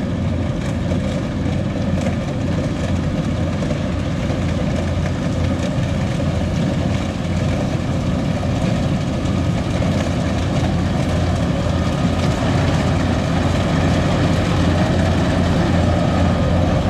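Kubota DC70 combine harvester's diesel engine running steadily under load as it harvests flattened rice, getting louder as it comes closer.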